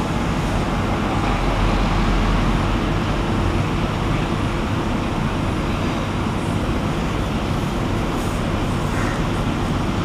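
Steady road-traffic rumble, swelling slightly about two seconds in.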